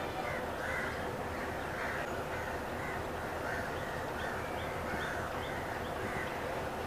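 Crows cawing repeatedly over a steady low rumble, with a short run of high bird chirps about four seconds in.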